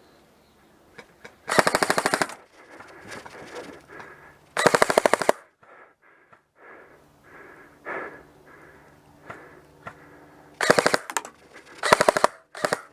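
An electric airsoft rifle (G&G CM16 SRS AEG) firing short full-auto bursts of rapid clicking shots: two in the first half and three more close together near the end, the last very short as the magazine runs empty.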